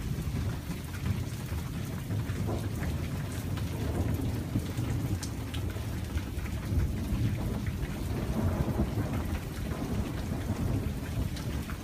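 Steady rain falling, with a continuous low rumble of rolling thunder under it.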